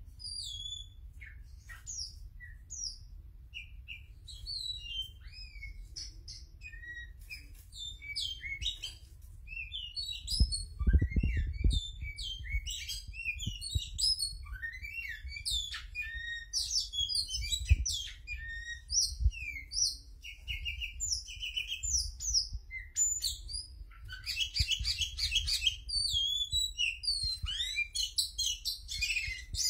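Oriental magpie-robin singing a long, varied song of short whistled notes, slurs and quick chattering phrases, growing denser and faster toward the end with rapid repeated notes. A few low bumps of handling noise come about ten seconds in.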